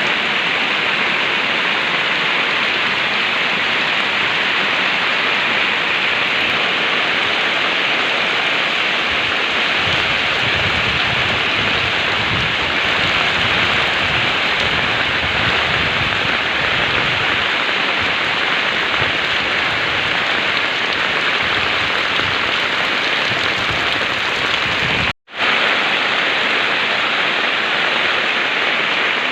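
Heavy rain pouring down steadily in a dense, even hiss. It breaks off for a split second about 25 seconds in, then resumes.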